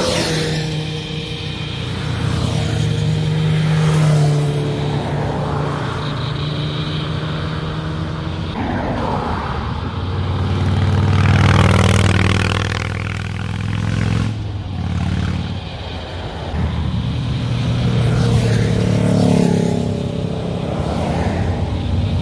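Motorcycles passing one after another at close range, each engine note swelling and fading as the bike goes by. The loudest pass, about halfway through, is a blue custom chopper.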